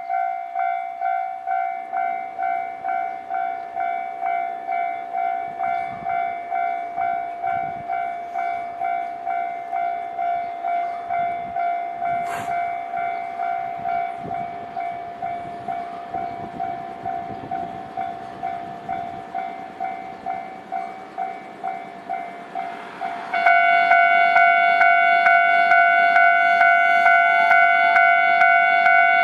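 Railway level-crossing warning bell ringing, a repeated ding at about two strikes a second. About 23 seconds in it suddenly becomes louder.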